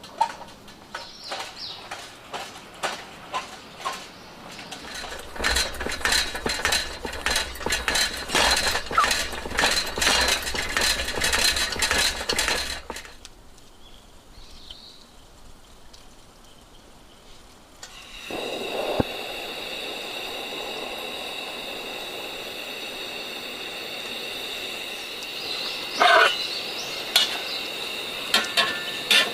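Metal utensils clinking and scraping against cookware, with frequent quick strikes that come thickest in the middle of the stretch. In the later part, a steady hiss runs under a few more clinks.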